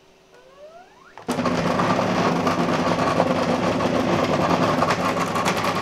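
JGAurora A7 3D printer's stepper motor feeding filament in its load routine: a short rising whine as it speeds up, then a loud, steady mechanical buzz for about four and a half seconds that cuts off suddenly.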